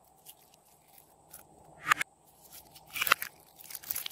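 Slime squeezed and kneaded in the hands, giving sharp crackling pops and clicks that grow more frequent after about two seconds.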